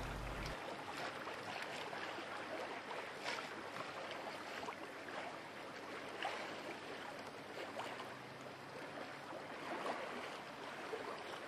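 Steady wash of water along the hull of a small sailing yacht under way, with a few soft splashes.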